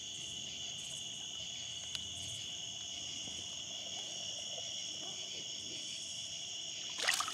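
Steady chorus of night insects such as crickets, a continuous high-pitched trill. Just before the end, a brief splash of water as the released blue catfish kicks away.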